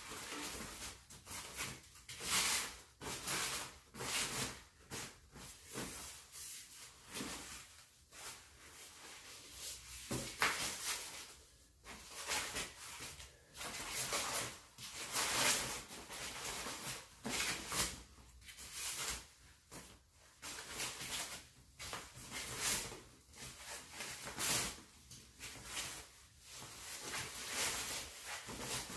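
Foam packing wrap rustling and crinkling in irregular bursts as it is pulled and unwound by hand from a bike frame.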